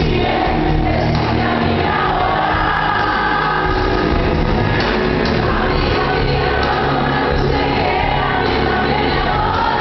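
A live pop song played over an arena's sound system: a woman sings long held lines over the full band, heard from far back in the hall.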